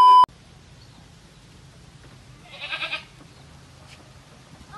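A loud steady test-tone beep, the kind laid over TV colour bars, cuts off a quarter second in. Then a goat bleats once, a short wavering call, about two and a half seconds in.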